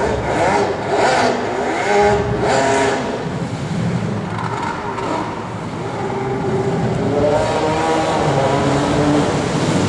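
Jet ski engine running and being revved, its pitch rising and falling repeatedly.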